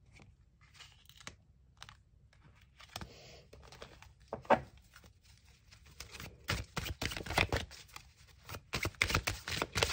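Tarot cards handled on a wooden table: soft slides and taps at first, then, from about six and a half seconds in, a quick run of crisp card snaps as the deck is shuffled.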